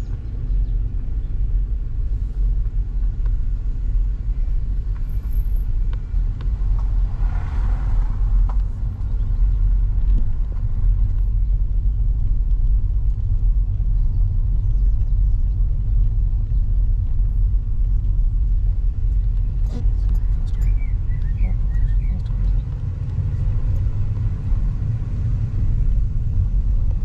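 Car engine and tyre noise heard from inside the cabin of a moving Audi: a steady low rumble, with a few faint clicks about two-thirds of the way through.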